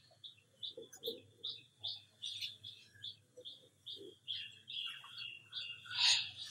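Small birds chirping over and over: short high chirps, two or three a second, loudest near the end.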